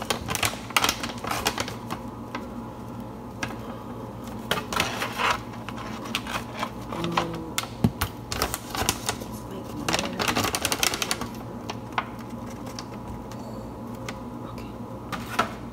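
Plastic brownie-mix pouch crinkling and rattling as it is shaken and tipped to empty the dry mix into a plastic container, in several irregular bursts of crackly clicks.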